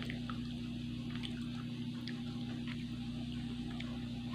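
A steady low electrical hum, with a few faint short clicks and soft rustles as fried sosis solo rolls are picked up off a paper-lined plate.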